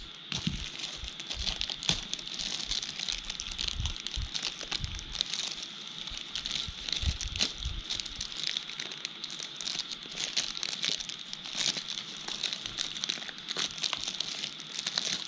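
Packaging on a small product box crinkling, crackling and tearing as it is handled and opened by hand, in quick irregular rustles and snaps.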